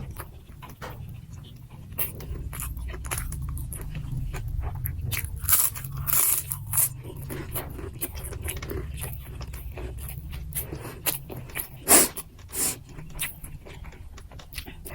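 Close-miked chewing and crunching of a mouthful of food (nasi gila), with many sharp crisp clicks and a few louder crunches about halfway through and near the end.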